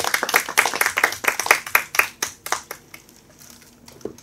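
Audience clapping, thinning out and dying away about three seconds in.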